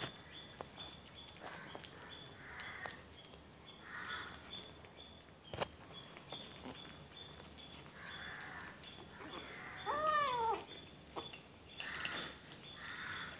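Kitten eating rice and fish from a steel plate, with soft scattered chewing and smacking noises and small clicks. One short meow, rising then falling, about ten seconds in.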